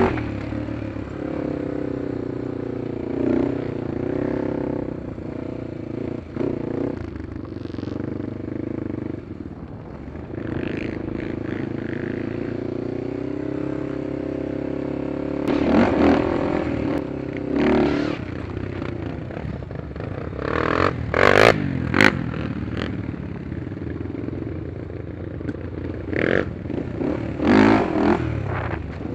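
Honda 400EX quad's single-cylinder four-stroke engine running under a rider, its revs rising and falling as it is ridden, with several louder bursts of throttle and knocks and rattles in the second half.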